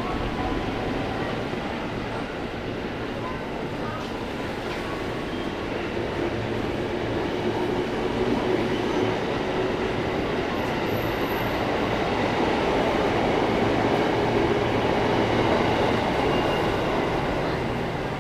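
KRL electric commuter train running through the station, a steady noise with a faint hum that grows louder about two-thirds through and eases off near the end.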